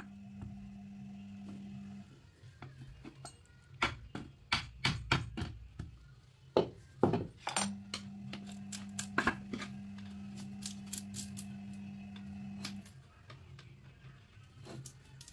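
Irregular sharp metal knocks and clinks from a steel chisel and hammer working against the cut-open steel shell of an air-conditioner compressor, loosening the copper-wound stator inside. The hardest blows come in a cluster about seven seconds in, with lighter taps spread on either side.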